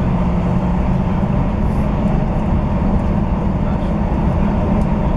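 Class 158 diesel multiple unit running at speed, heard from inside the carriage: a steady low engine drone with a constant hum over the rumble of wheels on track.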